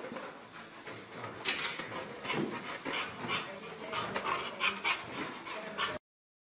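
A dog making a series of short sounds, one every half second to a second. The audio cuts out completely near the end.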